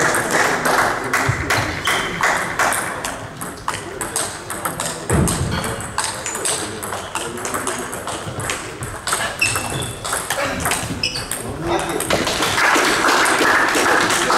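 Table tennis rally: the ball clicking sharply off the bats and the table in quick succession, with a dull thump about five seconds in.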